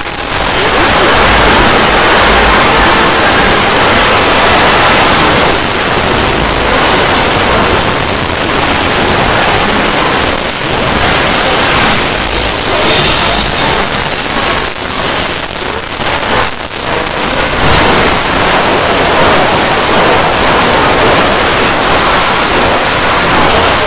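Loud, harsh static-like noise filling all pitches, steady with a brief dip about two-thirds of the way through.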